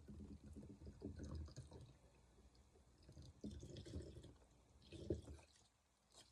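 Faint, scattered kitchen handling noises: soft knocks and light rustling, with a sharper knock about five seconds in.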